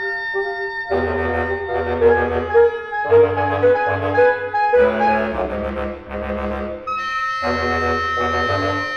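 A mixed woodwind quintet of oboe, clarinet, saxophone, bassoon and bass clarinet playing a contemporary chamber piece. About a second in, the low bassoon and bass clarinet come in under the higher voices, in phrases broken by short breaths.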